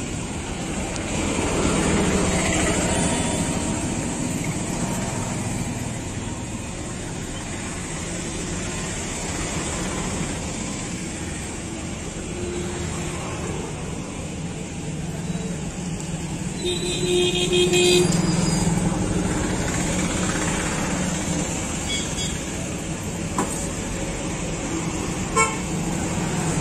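Street traffic noise with vehicle horns. One horn sounds clearly for about a second and a half about two-thirds of the way through, after a shorter toot, and there is a sharp click near the end.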